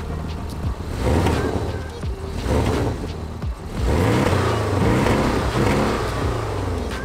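Porsche GTS sports car revved while standing still, on its standard exhaust without the sports exhaust option. The engine note rises and falls three times, the last blip held longer.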